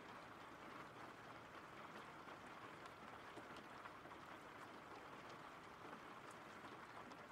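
Faint, steady rain: a soft, even hiss of falling rain with the odd light drop tick.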